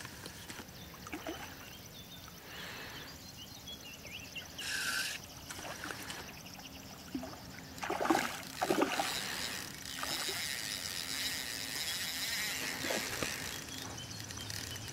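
A hooked grass carp thrashing and splashing at the water's surface while being played in. The loudest splashes come in quick succession about eight seconds in, with smaller splashes before and after.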